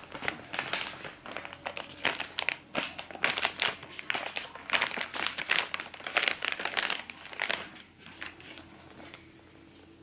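Dreamies cat-treat pouches, foil-lined plastic, crinkling as they are handled: a dense run of crackles that dies away about eight seconds in.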